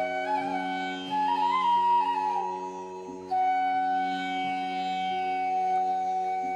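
Instrumental background music in an Indian classical style: a flute-like melody with sliding ornaments over a steady drone, settling on one long held note about halfway through.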